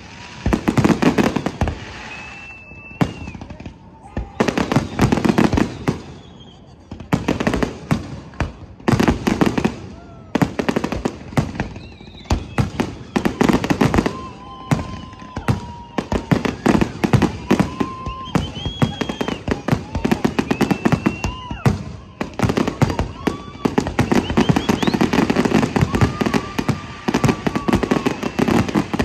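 Fireworks display: aerial shells bursting and crackling in volleys every couple of seconds, becoming almost continuous from about halfway through.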